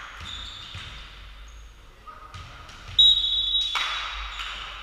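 Volleyball rally sounds: a ball being struck with sharp smacks, short high squeaks, and a loud shrill whistle-like tone about three seconds in, followed right after by a hard ball hit.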